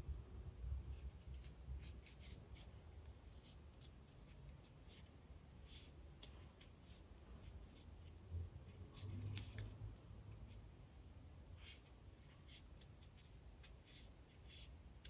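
Faint, irregular light ticks and scratching of a metal crochet hook pulling yarn through stitches, with soft handling bumps.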